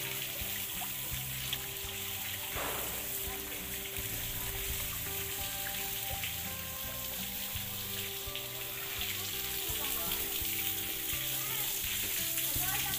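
Water pouring into a koi pond, a steady splashing hiss, with soft background music underneath.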